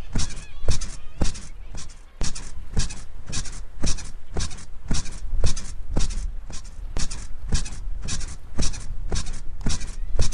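Bed springs squeaking in a steady rhythm, about three squeaks a second, over a continuous low rumble.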